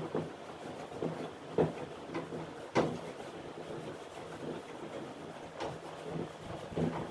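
A cloth rubbing and scrubbing over the plastic front panel and grille of a split AC indoor unit, with irregular knocks and clatters of the plastic as it is handled, the loudest about one and a half and three seconds in.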